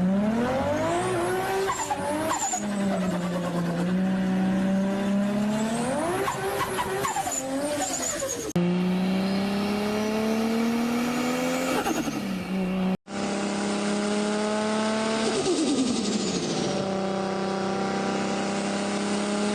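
Turbocharged car engines revving up and dropping back again and again, over three short clips, with a high turbo whistle and chirps as the revs peak and fall.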